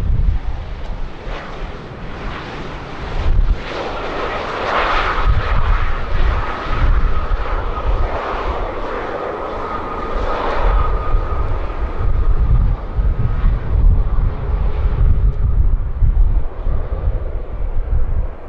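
Jet airliner's engines passing on landing approach, a steady high whine that swells a few seconds in and fades away about two-thirds of the way through. Gusty wind buffets the microphone throughout with a low rumble.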